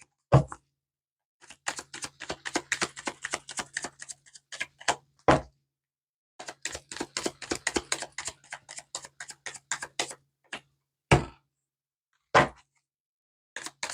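A deck of tarot cards being shuffled by hand: two long runs of rapid papery clicks, about eight to ten a second, broken by a few louder single knocks.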